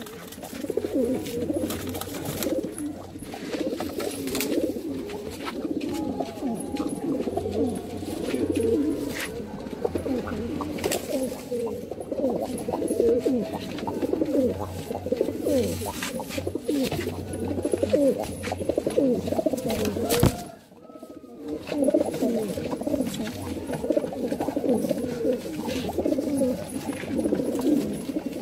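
Many Madrasi pigeons cooing at once in a steady, overlapping chorus, with scattered faint clicks; the sound drops out briefly about twenty seconds in.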